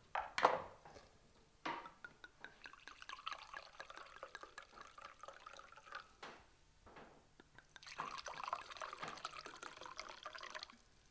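Red wine poured into a glass tumbler in two pours, a steady gurgling stream filling the glass. A couple of sharp knocks near the start.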